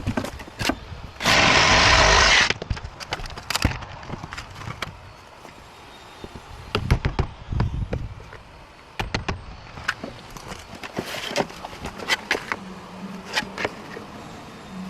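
Siding installation work: a series of sharp knocks and clicks, with a loud hissing burst lasting about a second, from a power tool or air tool, a little over a second in.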